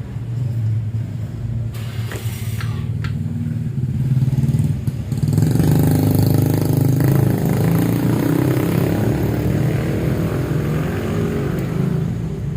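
2017 Honda Scoopy scooter's single-cylinder engine running at idle, then revved up about five seconds in and held at higher revs for several seconds before easing back down.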